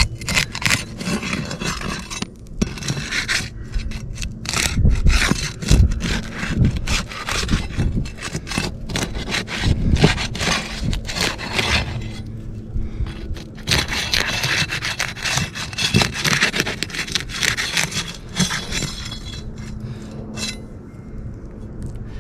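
Asphalt roof shingles being unsealed: a tool scraping and working under the tabs, breaking the adhesive seal strip with irregular scraping and crackling. This is the first step in testing whether the shingles can be lifted and repaired.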